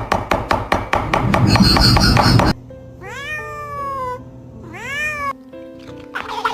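Music with a quick clicking beat, then two meow-like animal calls that rise and fall in pitch over held music notes, the first about a second long and the second shorter.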